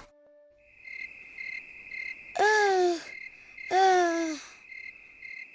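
Crickets chirping steadily in an even, pulsing rhythm, a night background for a cartoon. Over it come two drawn-out 'ah' sounds from a character's voice, each falling in pitch, about two and a half and four seconds in.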